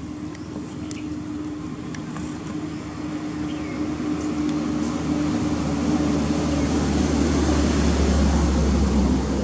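Motor vehicle engine running with a steady hum and rumble that grows louder over several seconds, peaks near the end, then eases.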